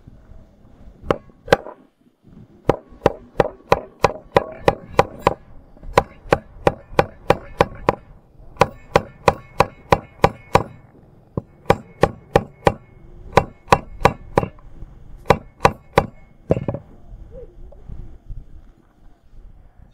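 Small hammer tapping a thin metal pin set on a wooden block, in runs of quick, even strokes about two to three a second, each with a short metallic ring.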